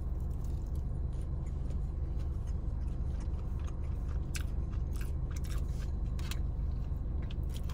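Close-up chewing of a mouthful of saucy Chinese takeout chicken, with scattered wet mouth clicks, most of them in the second half, over a steady low hum in the car cabin.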